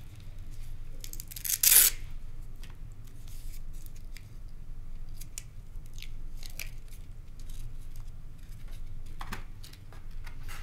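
Packaging trash being handled: plastic and paper rustling and crinkling, with one loud, short rustle about a second and a half in, then scattered small clicks and rustles.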